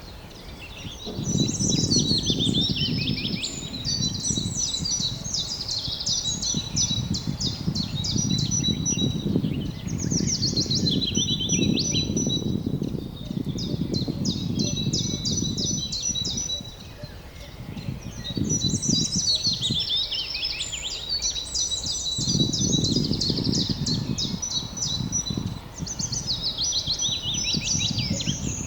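Songbirds singing: one bird repeats a falling song phrase about every eight to nine seconds over a steady, high, repeated note. Under it, a low rumble comes and goes in gusts.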